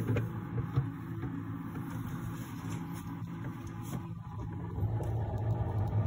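Samsung two-door inverter refrigerator running with a steady low hum that grows louder about five seconds in. Two short knocks come in the first second.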